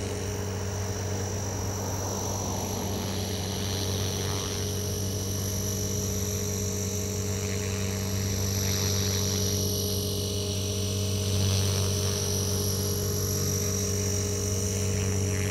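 Electric 500-size RC helicopter in flight: a steady rotor hum with a thin, high-pitched electric motor whine over it, holding even with only slight swells in level.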